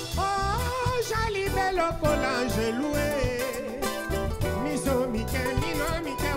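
Live Congolese rumba played by an acoustic band of guitars and percussion, with a lead voice singing a wavering, bending melody over a steady beat.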